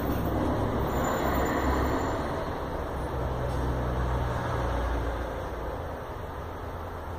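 Steady low rumble under a broad rushing noise, easing off after about five seconds.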